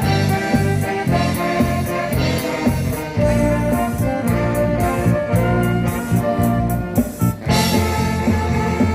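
Live band music: held melody notes over a strong bass line and a regular drum beat, becoming brighter and fuller about seven and a half seconds in.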